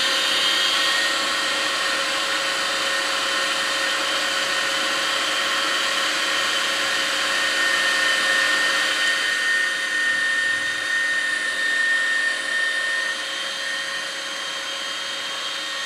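Electric meat grinder running steadily as it grinds minced meat into a finer mince, its motor holding an even, humming pitch; it gets slightly quieter near the end.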